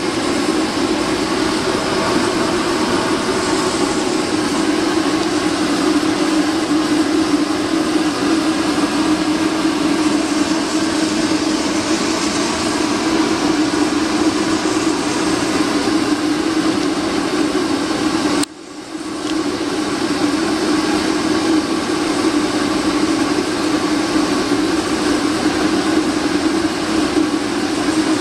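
Home-built waste vegetable oil burner, an old fire-extinguisher bottle with a pipe welded on the side, running steadily on forced air. The flame and the air feed make a loud, even rushing noise with a strong low hum, dipping briefly about eighteen seconds in.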